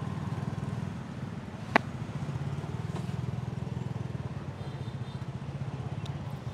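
A small engine running steadily with a low, fast-pulsing hum, and one sharp click a little under two seconds in.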